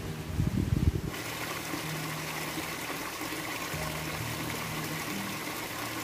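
Small mountain stream trickling and splashing over rocks into a shallow pool: a steady hiss of running water that starts abruptly about a second in. Before that comes a low, uneven rumbling.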